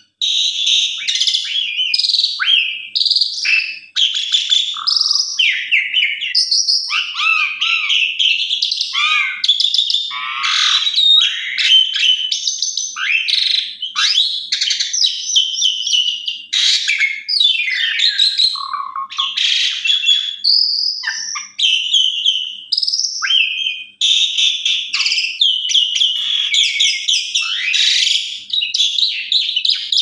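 Javan pied starling (jalak suren) singing a long, varied song of whistles, chatter and rising and falling notes packed with mimicked phrases, with barely a pause.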